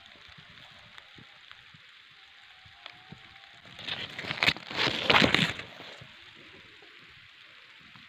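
Leafy branches rustling close to the microphone in a loud burst lasting a second or two near the middle, over a steady faint outdoor hiss.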